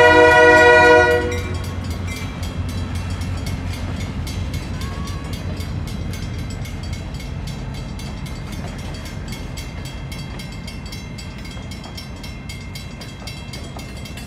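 California Western No. 64, an EMD GP9 diesel locomotive, ends its multi-tone air horn blast about a second in. Then it and its passenger coaches roll past with a steady low rumble that slowly fades, while a crossing bell dings rapidly.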